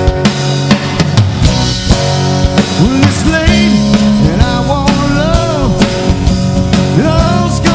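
Live rock band playing at full volume, led by a steady drum-kit beat with guitar and bass.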